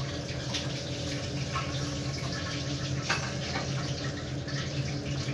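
Steady hiss with a low hum underneath, and a few faint scratches and crinkles as a utensil pokes through crisp fried vermicelli nests in a plastic-wrap-lined tin.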